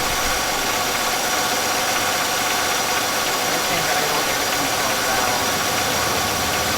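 1999 Buick Century's 3.1-litre V6 idling unevenly, with a loud, steady sucking hiss of air from a vacuum leak, which the owners put down to failed intake seals.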